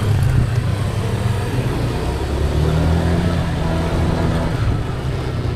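A car being driven: a steady low engine and road drone.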